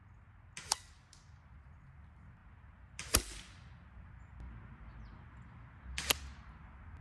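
Three sharp cracks from a Stroger 5800E-Tac .177 PCP air rifle being fired some way off, about three seconds apart, each with a short fading tail.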